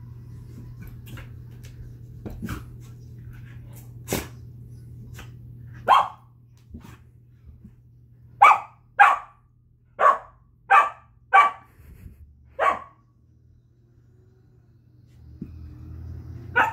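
Samoyed puppy barking at a cat: a run of short, sharp barks, most of them coming quickly one after another in the middle, with one more near the end.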